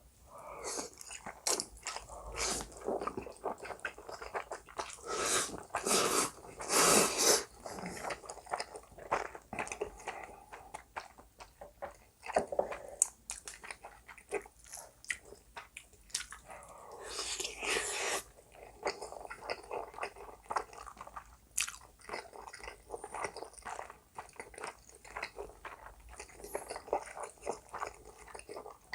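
Close-miked eating sounds of spicy black-bean noodles and Spam: chewing and biting with many small wet mouth clicks. There are two longer, louder stretches, one about five seconds in and one about seventeen seconds in.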